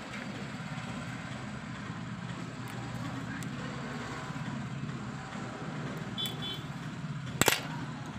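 Steady low rumble of street traffic. A short high beep comes about six seconds in, and a single sharp knock follows about a second later.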